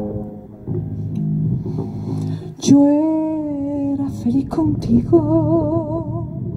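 Live music: guitar plucking notes, then a woman's singing voice comes in about two and a half seconds in with a long held note, followed near the end by another note sung with a wide vibrato over the guitar.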